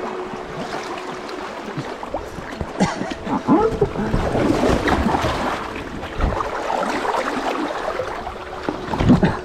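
River water splashing and gurgling around a paddleboard, busier and louder from about three seconds in.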